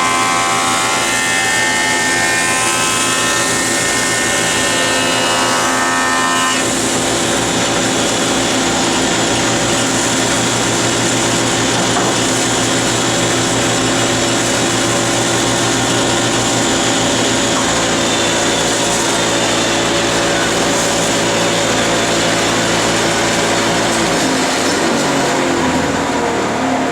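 Grizzly 8-inch jointer and shop dust collector running loud and steady while a rough hard maple board is jointed across the cutterhead. Near the end the machine winds down, its pitch falling.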